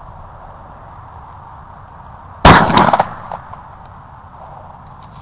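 A single shotgun slug fired from a Remington 870 slug gun, a sharp loud shot about halfway through that echoes away over about a second.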